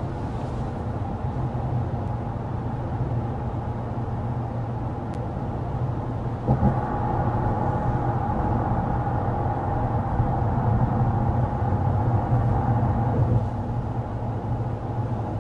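Steady interior road noise of a 2024 Ram 1500 Limited cruising at 55 mph, heard in the cabin: a low tyre-and-road rumble with some wind and the climate fan on its lowest speed. About six and a half seconds in there is a short knock, and after it the rumble grows a little louder and coarser.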